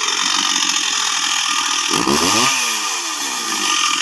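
Two-stroke Stihl chainsaw running hard at high revs, its engine pitch dipping and climbing back up about two seconds in.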